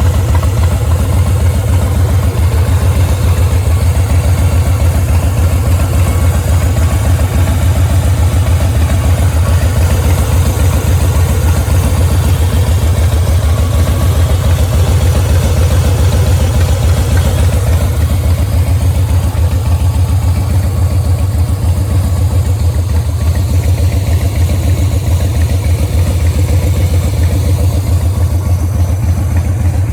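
2007 Harley-Davidson Softail Fat Boy's Twin Cam 96 V-twin idling steadily through an aftermarket Freedom Performance exhaust, a loud, even low pulse with no revving.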